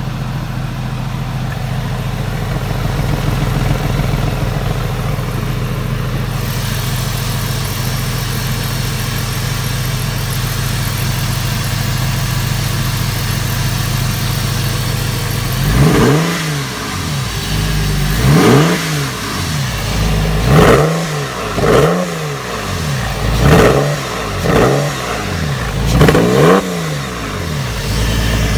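Porsche 996's flat-six engine through a modified exhaust, running while misfiring on cylinder 2. It idles steadily for about the first half, then is revved in about seven short blips.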